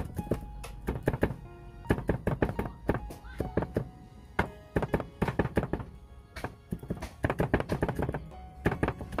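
Cleaver chopping garlic on a wooden chopping board: quick runs of knocks, several a second, with short pauses between runs. Background music plays underneath.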